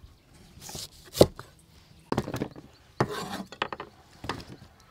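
A cleaver chops once through a green tomato onto a wooden chopping board, a single sharp knock about a second in. Then comes scraping, with several small clatters, as the cut slices are carried on the blade and tipped onto a metal tray.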